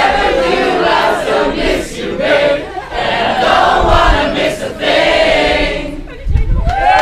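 A large crowd of young people singing together, many voices at once, with little or no instrumental backing. The singing dips briefly about six seconds in.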